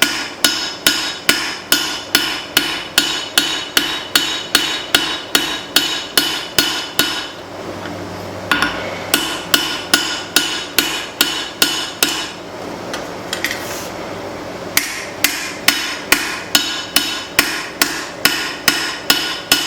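Forging hammer striking leaf-spring steel on an anvil at a steady pace of about three blows a second, drawing out the bevels of a cleaver blade, with the steel and anvil ringing after each blow. The hammering stops twice, about 7 seconds in and again about 12 seconds in, and picks up again each time.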